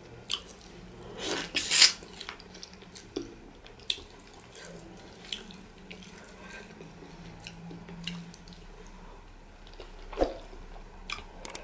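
Wet eating sounds of pounded yam fufu and light soup eaten by hand: fingers squelching in the soft fufu and soup, and lips smacking while chewing. It comes as a scatter of short wet clicks and smacks, the loudest about a second and a half in.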